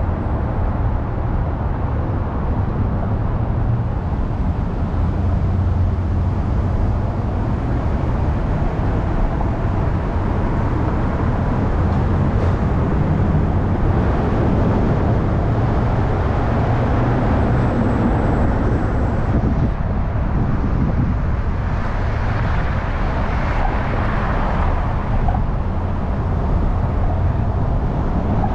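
Car driving on a city road: a steady run of engine and tyre noise with a deep rumble, and a louder swell of noise that rises and fades about three-quarters of the way through.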